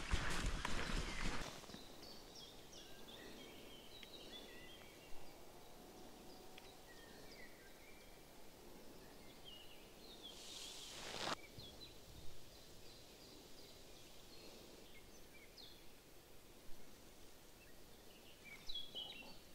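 Faint birdsong: scattered short chirps and calls from several small birds in open countryside. Louder noise dies away in the first second and a half, and a short rush of noise comes about eleven seconds in.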